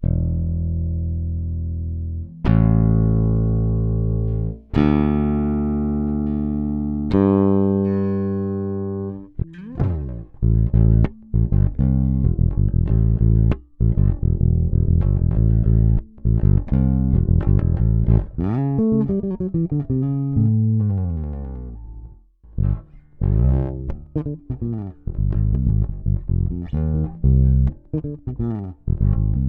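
Electric bass guitar played solo: four long notes each left to ring for about two seconds, then a quicker line with falling slides in the middle and a busy run of short plucked notes.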